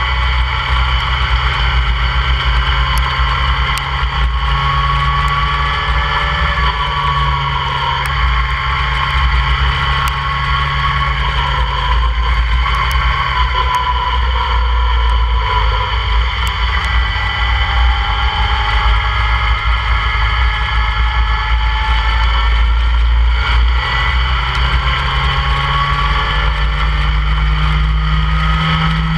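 Open-cockpit track car's engine running at speed, its pitch rising and falling with the revs, under heavy wind buffeting on the onboard microphone.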